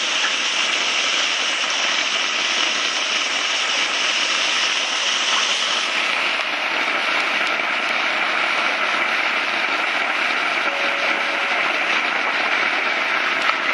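Steady rush of churning, splashing water in a koi holding tank, shifting slightly in tone about six seconds in.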